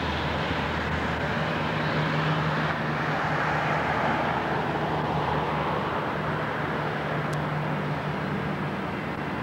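Twin-turboprop airliner at takeoff power: engines and propellers run steadily as it rolls, lifts off and climbs, a low propeller drone under a broad rush of engine noise.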